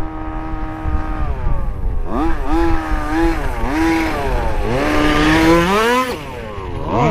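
Small two-stroke petrol engine of a 1/5-scale gas RC buggy, held steady for about a second, then revved up and down repeatedly with one long climb to a high pitch around five to six seconds in before it falls away.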